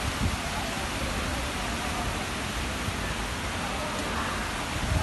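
Steady rushing hiss of falling water, with an uneven low rumble underneath.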